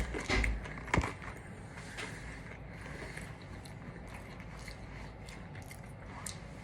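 Eating sounds: a person chewing and handling food. There are a few dull knocks in the first second, then small scattered clicks.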